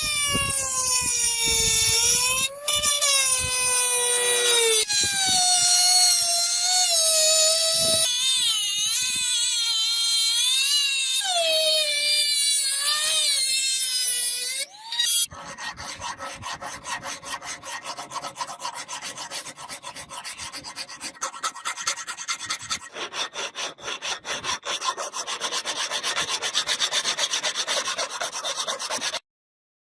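Steel being abraded by hand. For about the first half there is a squealing tone that wavers up and down in pitch. Then come quick repeated rasping strokes, which stop suddenly near the end.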